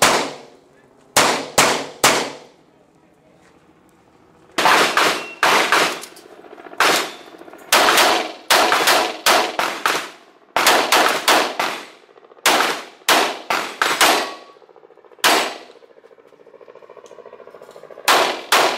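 Handgun shots fired in rapid pairs and strings, the shots about a third to half a second apart, each with a short ringing echo. There are pauses of one to two seconds between strings, and a longer one near the end before a final pair.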